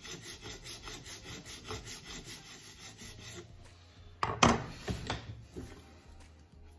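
Flat file draw-filing the edge of an acrylic piece held in a vise: quick, even rasping strokes that stop after about three and a half seconds. A loud knock follows about four seconds in, as the file is set down on the wooden bench.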